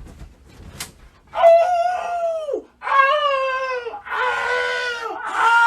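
A loud, high wailing voice gives four long cries in a row, each about a second long and each dropping in pitch at its end.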